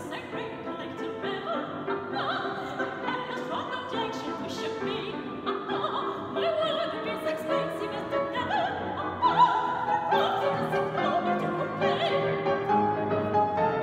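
Operatic soprano singing an aria with wide vibrato, accompanied by grand piano. Her voice climbs to louder, higher held notes a little past the middle.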